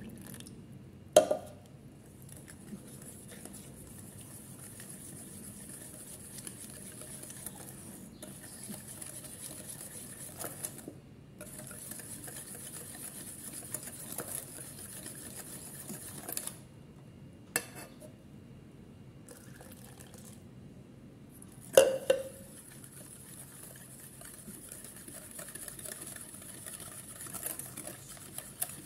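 Wire whisk stirring a thin liquid lemon-cream mixture in a stainless steel saucepan: a steady light scraping and clinking of the wires against the pan. Two sharp knocks stand out, about a second in and again about 22 seconds in.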